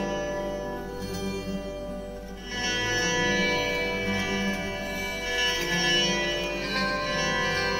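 Instrumental music led by a plucked string instrument over sustained held notes, growing fuller and louder about two and a half seconds in.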